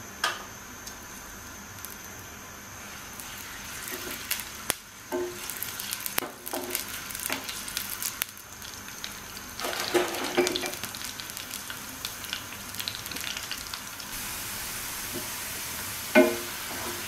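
Sliced onions frying in oil in a non-stick pan, sizzling as they start to cook, the sizzle growing louder a few seconds in and again near the end. A spatula scrapes and knocks against the pan as the onions are stirred, with the loudest knock near the end.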